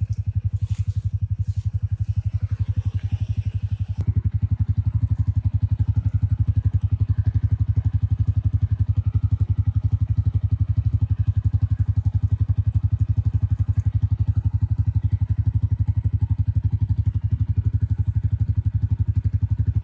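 A steady, loud, low engine-like drone with rapid, even pulses, a little louder from about four seconds in.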